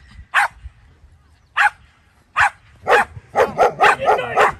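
German Shepherd barking at a decoy in protection work: single loud barks about a second apart, then a fast run of barks from about three seconds in.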